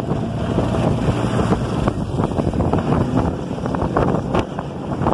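Off-road 4x4 jeeps driving through shallow floodwater: engines running with uneven revving and water splashing and spraying up from the wheels. There is wind noise on the microphone.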